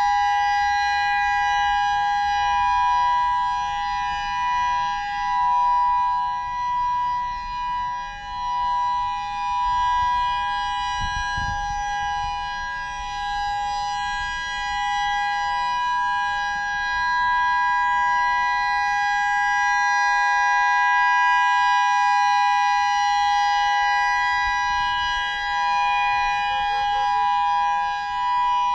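Federal Signal EOWS 612 electronic outdoor warning siren sounding a steady tone, two pitches held together without rising or falling. Its loudness swells and fades every few seconds as the rotating horn sweeps toward and away.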